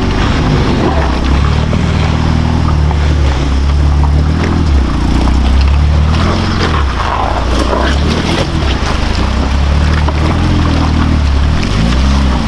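Off-road truck's diesel engine labouring through deep water, its pitch rising and falling as the driver works the throttle, with water and mud churning and splashing around it.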